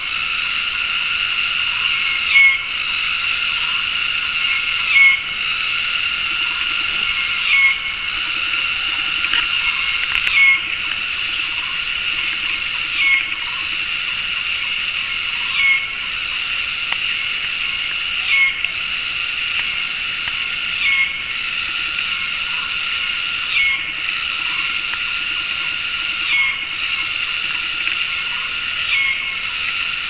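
Tropical cicadas calling in a dense, steady high-pitched chorus, their calls synchronized so that the whole chorus swells briefly and dips together about every two and a half seconds.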